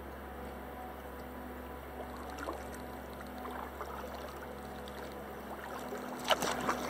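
Kayak paddle working in still swamp water: faint drips and trickles, then a few sharper splashes near the end, over a steady faint hum.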